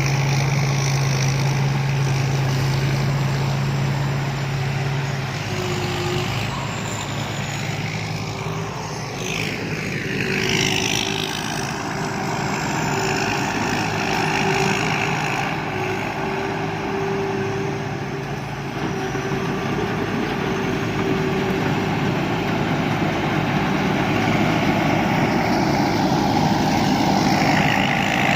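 Combine harvester's engine and machinery running steadily, with a brief drop and rise in pitch about ten seconds in.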